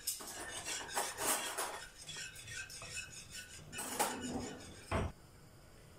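Metal whisk stirring thick pelte in a pot, scraping and clinking against the pot in repeated strokes to keep the pudding from lumping as it comes to the boil. A single knock about five seconds in, after which the stirring stops.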